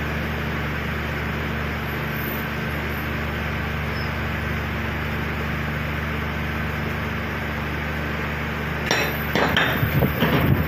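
A steady low mechanical hum. About nine seconds in, a quick run of irregular knocks and clinks begins and is the loudest sound.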